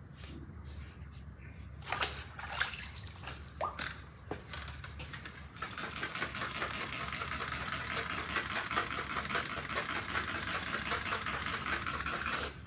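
Sanding block being worked by hand over wet single-stage automotive paint to flatten runs. After a few scattered scrapes and knocks, it settles about halfway in into steady, quick back-and-forth scrubbing strokes, about seven a second.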